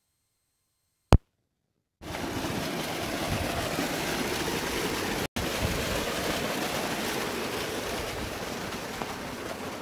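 Almost two seconds of silence with a single sharp click, then steady rushing of irrigation water from a solar-powered tubewell flowing through mud field channels, broken once by a split-second gap about five seconds in.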